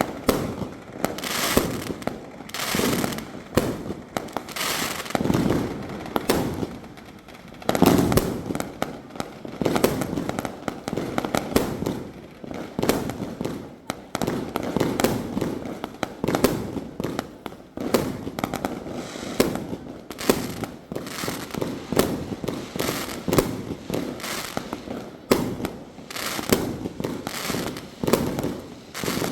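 A 2-inch, 88-shot firework cake firing its shots one after another, a steady volley of sharp launch bangs and aerial bursts at about one to two a second.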